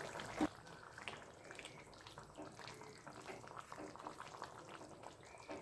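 Mutton curry bubbling faintly in a kadhai, sloshing as a wooden spatula stirs it, with a single knock about half a second in.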